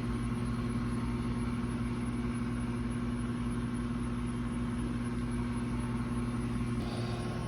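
Steady low mechanical hum, like a motor running, that shifts slightly near the end.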